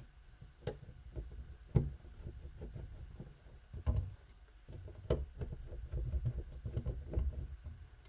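Small screws being undone from a laptop cooling fan's housing: sharp taps and clicks of the screwdriver and small metal and plastic parts, with a run of quick small clicks past the middle.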